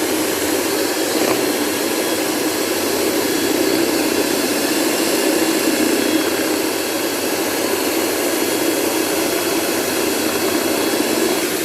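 Electric beater running steadily at high speed, its beaters whipping cream in a bowl.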